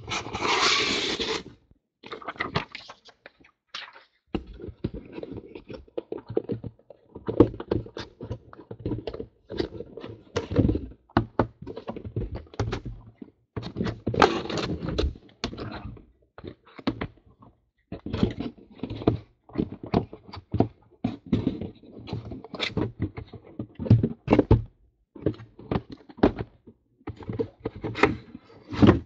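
Cardboard shipping case being opened and the sealed cardboard boxes of trading cards inside slid out and set down: cardboard scraping and rustling with many light thunks and knocks. A longer scrape of cardboard comes right at the start as the flaps are pulled open.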